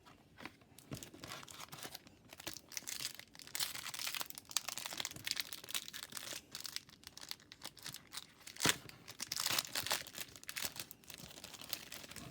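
Trading card pack wrapper being torn open and crinkled by hand, a run of crackling rustles with one sharper crack about three quarters of the way through.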